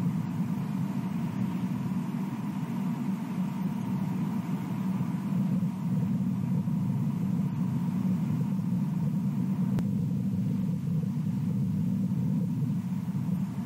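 Steady low background rumble with a faint, thin steady tone above it.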